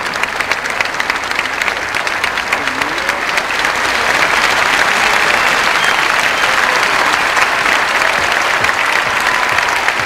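Large concert audience applauding, a dense crackle of many hands clapping, with a few voices calling out over it; the applause swells a little about four seconds in.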